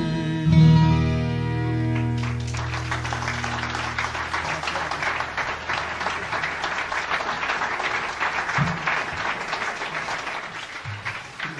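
The song's final chord, with acoustic guitar, rings and stops about two seconds in, then a live audience applauds, the clapping thinning toward the end.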